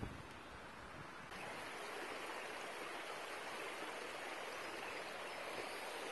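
Shallow creek water running over rocks: a steady rushing sound that grows louder about a second in.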